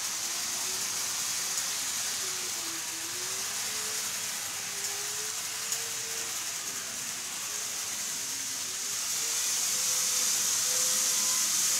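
N gauge model train of a Keikyu 600 series running on layout track: a steady hissing rumble of wheels on rail, with a faint motor whine that wanders up and down in pitch. It grows louder about nine seconds in as the train passes closer.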